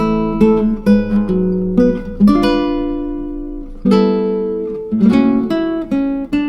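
Background music: acoustic guitar playing plucked notes and chords, with a chord left ringing in the middle.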